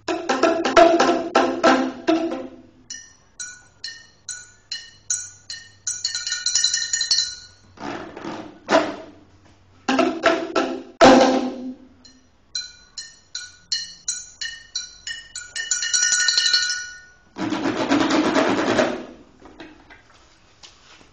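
Improvised hand percussion: runs of short, separate ringing struck notes, about two a second, alternating with loud flurries of rapid beating.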